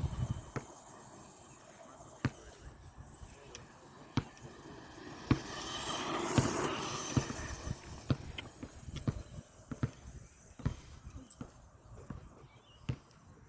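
Stock Blackzon Smyter MT RC monster truck with a brushed electric motor driving over grass: a faint hiss of motor and tyres swells up and fades away between about five and eight seconds in as it passes close, with scattered sharp clicks and knocks throughout.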